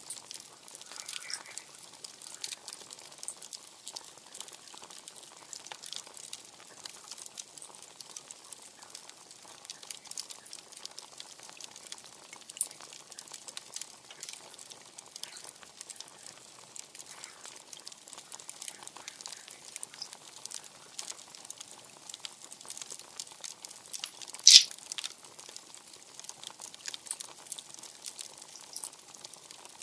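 Wood campfire crackling steadily with small pops, and one louder, sharp pop about two-thirds of the way through.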